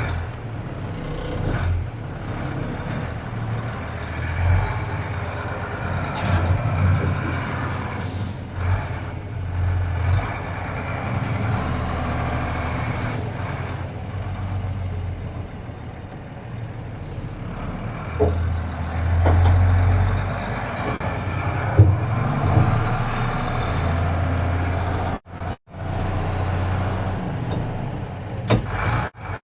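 Mercedes-Benz Unimog U2450 6x6 truck's diesel engine running under load as it crawls through moguls, swelling and easing with the throttle, with a few knocks from the truck. The sound cuts out briefly twice near the end.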